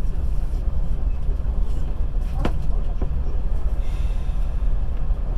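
Passenger train carriage running along the track with a steady low rumble, its wheels knocking twice over a rail joint about halfway through.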